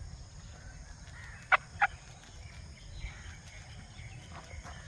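An Aseel hen, held in the hands, gives two short clucks about a second and a half in, over a low rumble.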